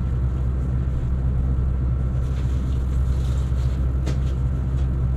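A steady low hum runs throughout. In the second half come a few faint rustles and soft knocks as a nylon sleeping bag is picked up and handled.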